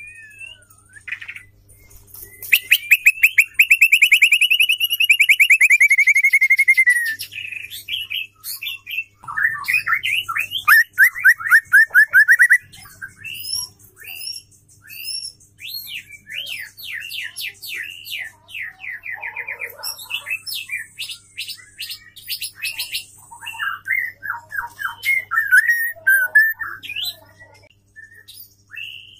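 Female white-rumped shama singing a varied song of rapid trills and short whistled notes and chips. The longest trill runs for several seconds after about two seconds in, and another fast trill comes about ten seconds in.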